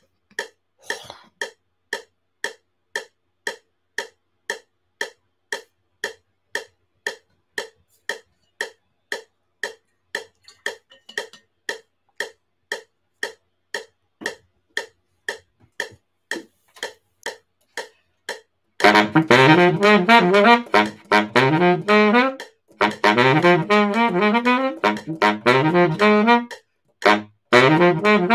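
Metronome clicking steadily, about two and a half clicks a second. About 19 seconds in, a baritone saxophone comes in loud, playing a vibrato-note exercise in time with the clicks, with a short break a few seconds later.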